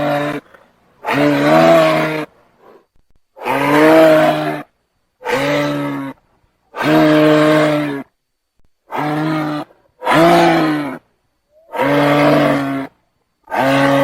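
Giraffe calling: a series of about eight pitched, groaning calls, each about a second long, repeated every second or two with abrupt silent gaps between them.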